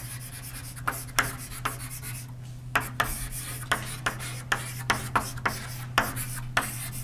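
Writing on a lecture board: a quick run of short strokes and taps, about two a second, as an equation is written out.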